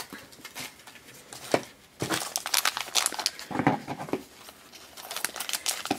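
Crinkling of a shiny plastic blind bag handled and torn open to get at the figure inside, sparse crackles at first, then busier crinkling from about two seconds in.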